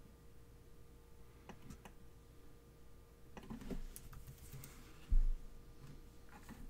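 Scattered clicks of a computer keyboard and mouse, with one dull low thump about five seconds in, over a faint steady hum.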